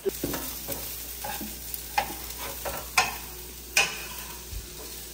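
Diced peppers and onion sizzling in a frying pan while a metal fork and turner stir them. The utensils click and scrape against the pan every second or so, loudest about three and four seconds in.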